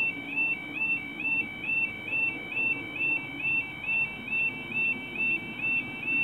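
Level crossing audible warning alarm sounding while the barriers are down: a high two-note warble repeating about twice a second, the signal that a train is approaching.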